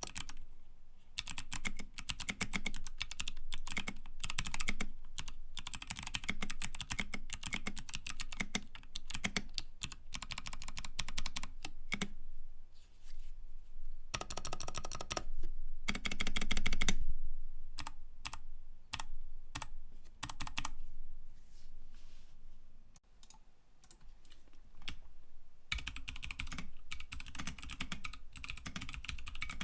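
Typing on a mechanical keyboard with lubed Kailh BOX Pink clicky switches: fast runs of crisp clicks, each keystroke a click-bar snap plus the key bottoming out. There is a louder burst in the middle and a brief sparser lull before steady typing resumes. The lubricant softens the click somewhat and makes the keystrokes smoother.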